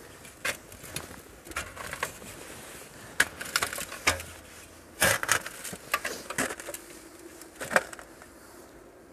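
Irregular crunches and knocks with a few sharp clicks, the handling noise of hands-on work with no steady machine running.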